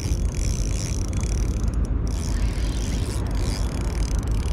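Steady low rumble of wind and shirt fabric rubbing over the camera's microphone while a spinning reel is cranked, with a faint high whir running under it.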